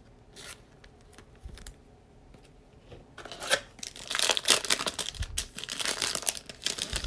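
Foil wrapper of a Prizm basketball card pack being torn open and crinkled as the cards are pulled out, starting about three seconds in after a few faint taps.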